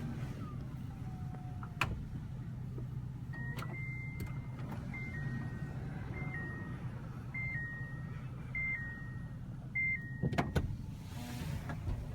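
Toyota Alphard 30-series power sliding door running on its motor with a steady hum, while a two-tone electronic warning chime repeats about every second and a quarter. Sharp latch clunks follow near the end.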